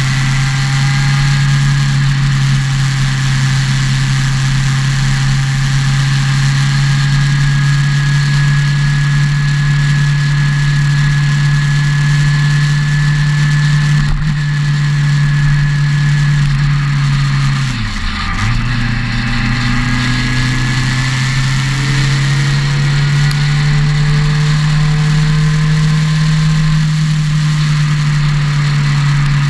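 Motorcycle engine running at steady cruising revs while riding on the open road, with a continuous rush of noise over it. There is a single short knock about halfway through, and about two-thirds of the way through the revs dip sharply and climb straight back.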